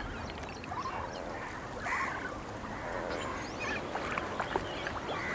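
A flamingo flock calling: scattered short goose-like honks and chatter over a steady background.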